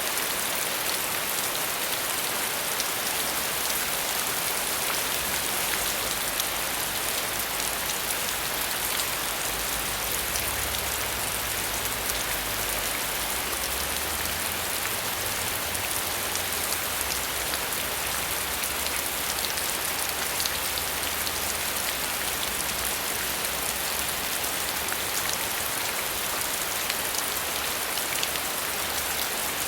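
Steady rain falling, a dense even patter of drops with a faint low rumble underneath through the middle.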